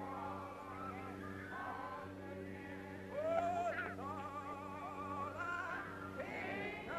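Several voices singing together, with overlapping lines and one held, wavering note about four seconds in, over a steady low electrical hum of an old optical film soundtrack.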